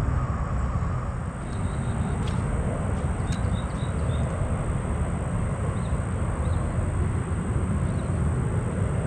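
Steady low outdoor rumble, with a few faint high chirps between about one and four seconds in and twice more later.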